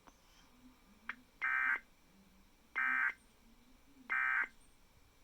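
Emergency Alert System end-of-message signal: three short, identical bursts of digital data tones, evenly spaced about a second apart, marking the end of the alert. A faint click comes just before the first burst.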